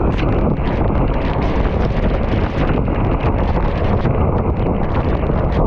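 Loud, steady wind rumble over the microphone of a racing cyclist moving fast, with a scatter of faint small ticks.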